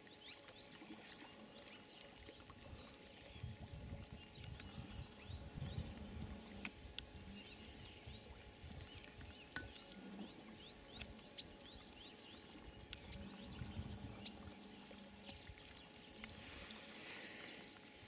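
Quiet bush ambience: a steady high-pitched drone with many short chirps over it and a few sharp clicks or snaps. Low rumbling comes and goes twice, around a third of the way in and again about three quarters through.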